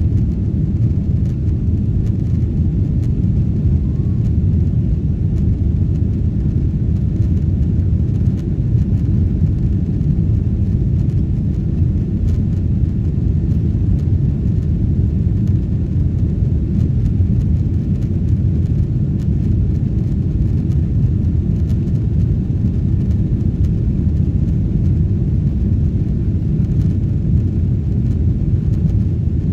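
Passenger aircraft cabin noise: the steady low drone of engines and airflow heard inside the cabin in flight.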